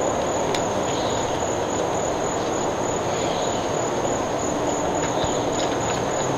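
A constant high, thin insect drone over a steady, even outdoor background rumble, with a couple of faint ticks.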